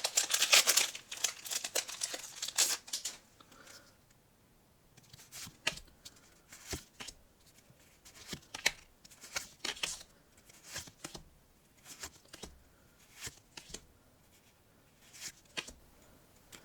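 Foil Pokémon booster pack crinkling and tearing open for the first three seconds or so. Then trading cards are flicked off the stack one at a time, short soft snaps about once a second.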